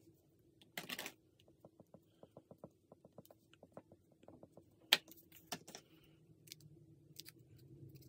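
Crayon scribbling on paper in quick, even strokes, about six a second, faint. It follows a brief rustle of paper about a second in and is followed by a sharp click near the middle and a few scattered light clicks and taps.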